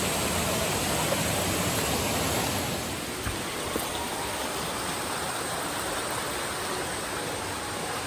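Steady rush of water from a rocky stream below a waterfall, dropping a little in level about three seconds in.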